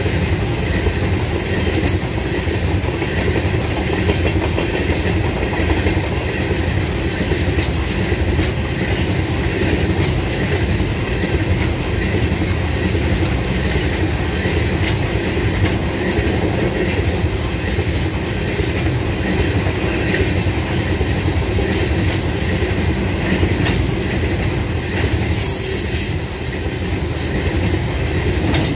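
A freight train of loaded open-top rock hopper cars rolling past close by: a steady loud rumble with the clickety-clack of wheels over rail joints, and brief high wheel squeals now and then.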